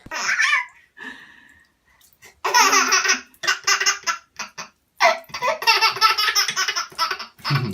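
A baby laughing in two long fits of quick, pulsing laughter, with a short burst at the start.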